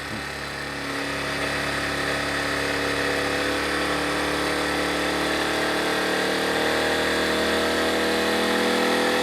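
Predator 1400 inverter generator's small gasoline engine running with eco mode off, speeding up slowly as electrical load is applied, its pitch and loudness rising steadily.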